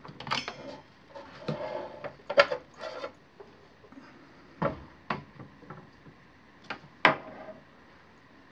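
Instant Pot air fryer lid lifted off the pot and set aside: a string of knocks and clatters, the loudest about two and a half seconds in and again near seven seconds.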